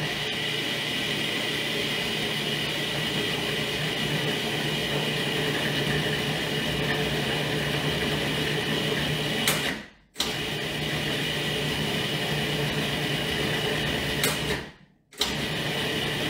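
Food processor motor running steadily, mixing a ground almond crust with coconut oil and syrup until it sticks together. It cuts out for a moment twice, about ten and fifteen seconds in, and restarts each time.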